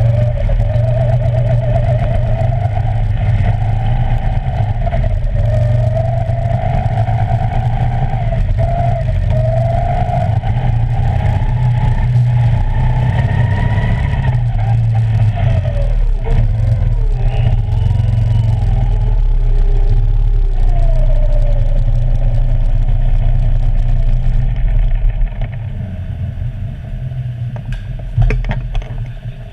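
Go-kart engine heard onboard, its pitch rising and falling as the throttle opens out of corners and closes into them, with another kart's engine close by in the middle stretch. Near the end it falls to a quieter, lower running as the kart slows into the pit lane.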